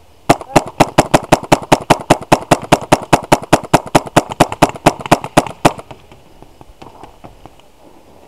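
Paintball marker fired in a rapid string, about thirty shots at five or six a second, then stopping abruptly.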